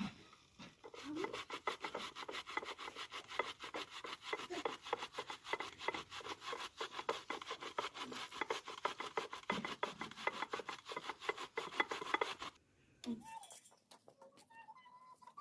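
Rapid, even rubbing or scraping strokes, several a second, that stop about twelve seconds in.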